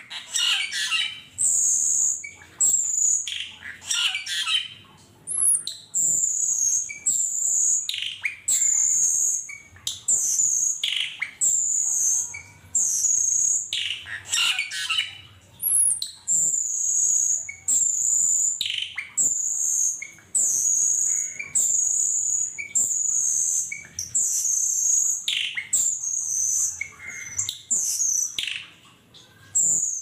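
A flock of cucak keling (Asian glossy starlings) calling: sharp high-pitched chirps about once a second, mixed with lower, falling notes.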